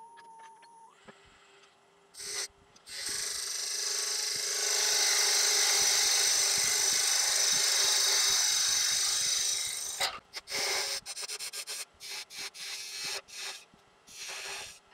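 A turning tool cutting the spinning wooden box lid on a wood lathe, taking its rim down to fit the pot. After a couple of brief touches there is one steady cut lasting about seven seconds, then a quick run of short, light cuts as the fit is crept up on, with a faint steady hum from the running lathe underneath.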